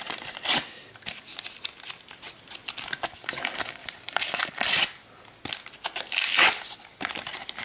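Foil wrapper of a Panini sticker packet crinkling and being torn open by hand, in irregular bursts of crackling.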